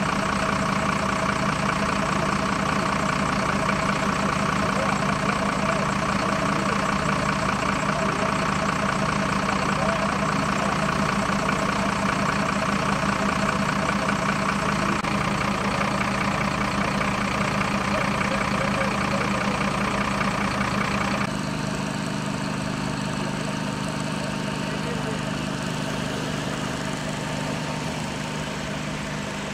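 Vehicle engine idling steadily: a constant low hum with a higher whine on top. About 21 seconds in the level steps down slightly and the higher whine drops away.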